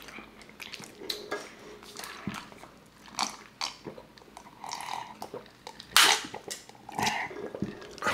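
Close-miked eating: chewing and biting, with the small cracks of shrimp and crab shells being peeled by hand. A few short, sharp noises stand out, the loudest about six seconds in.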